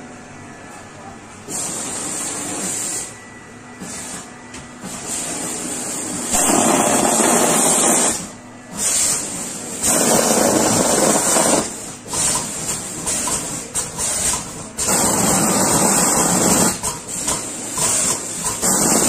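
Quilt fiber filling machine blowing fiber through its filling nozzle into a comforter, in repeated loud rushes of air one to three seconds long, with the machine's quieter running noise between them.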